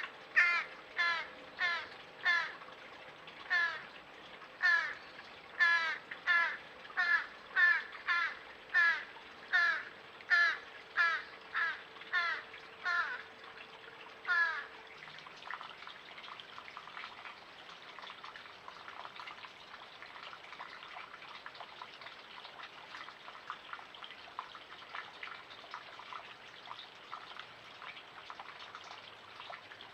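A harsh, crow-like call repeated about twice a second over a steady rush of running creek water, stopping about halfway through; after that only the creek is heard, with faint ticks and drips.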